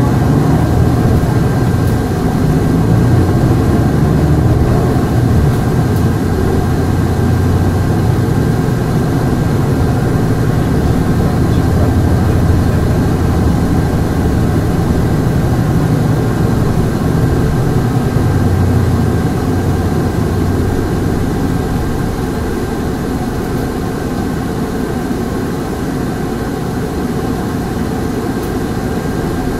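Diesel engine of a Hankyu city bus heard from on board while it drives, a low steady drone with a thin steady whine above it. The engine eases off about twenty seconds in and runs quieter after that.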